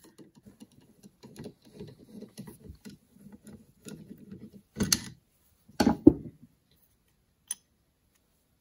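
Small metal clicks and scrapes of a screwdriver working the brass needle seat out of a Motorcraft 2150 carburetor body, followed by two louder knocks of metal parts or tools handled on the bench about five and six seconds in, and a last single click.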